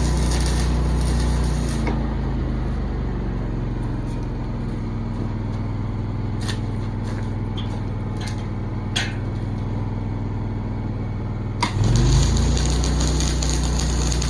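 An engine running steadily, easing down about two seconds in and picking up again sharply near the end, with a few light clicks in between.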